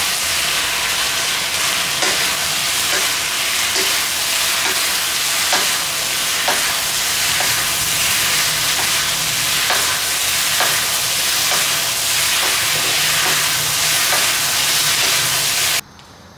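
Battered chicken, peppers and pineapple in sweet and sour sauce sizzling in a hot wok as a wooden spatula stirs and tosses them, the sauce cooking down to coat the pieces. The spatula scrapes the wok about once a second. The sizzle cuts off abruptly near the end.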